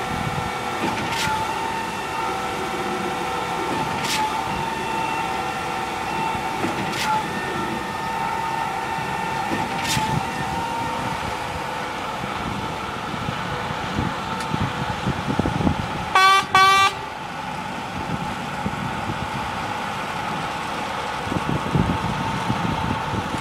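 Truck-mounted concrete pump running steadily during a roof slab pour, with a sharp click about every three seconds over the first ten seconds. About sixteen seconds in, a vehicle horn gives two short toots.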